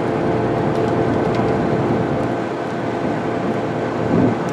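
Excavator's diesel engine running steadily, with a brief louder swell about four seconds in.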